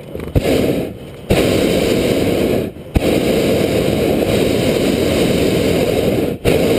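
Hot air balloon's propane burner firing in four loud blasts with brief gaps between them, the longest about three and a half seconds, each opening with a sharp click, on the approach to landing.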